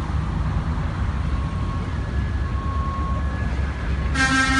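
Steady low rumble of street traffic. Near the end a vehicle horn starts to sound, a loud sustained honk.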